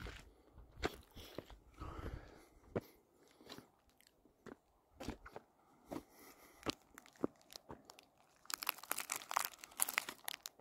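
Footsteps crunching on gritty granite and gravel: scattered crunches, then a quicker, louder run of them near the end.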